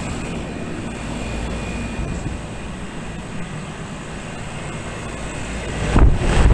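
A Trane XP central air-conditioner condensing unit running: a steady drone of its condenser fan and compressor with a faint hum. A brief loud rumble comes near the end.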